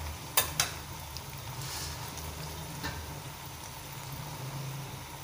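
Faint sizzling from the oil and potatoes at the bottom of the layered pot on the heat, over a steady low hum. Two sharp clicks come about half a second in.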